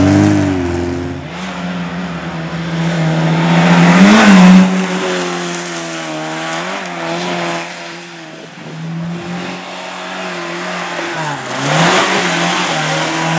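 Competition car engine revving hard as the car drives past, its pitch rising and falling through gear changes. It is loudest about four seconds in, then dies down and comes up again near the end.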